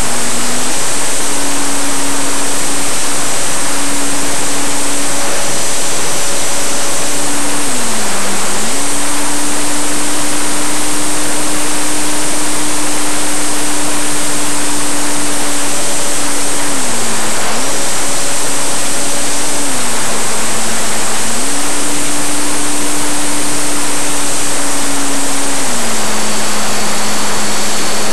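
In-flight sound aboard a Parkzone P-51, an electric radio-control foam warbird: the motor and propeller hum at one steady pitch that dips and comes back several times as the throttle is eased and reopened, under a loud rushing hiss of wind over the onboard microphone.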